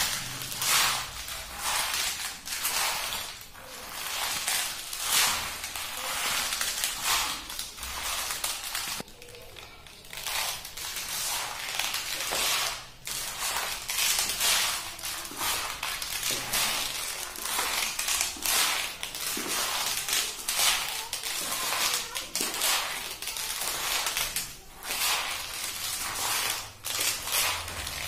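Leather Kolhapuri chappals creaking at every step, the traditional 'karr karr' sound of their layered leather soles flexing, in a steady walking rhythm of one or two steps a second. There is a short lull about nine seconds in.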